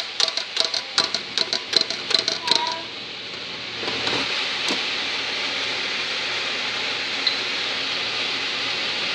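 Chips coated in Fry Light oil spray crackling and sizzling in a Philips air fryer for about three seconds. After a short lull, a steady even hiss of the air fryer's fan running takes over.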